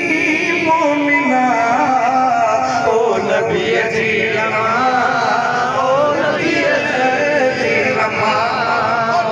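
A man chanting a devotional recitation in a wavering, ornamented singing voice, amplified through a microphone and loudspeakers.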